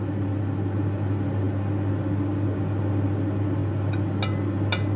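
A steady low mechanical hum from a kitchen appliance or fan. About four seconds in, a few quick ringing clinks of a utensil against a plate as food is served.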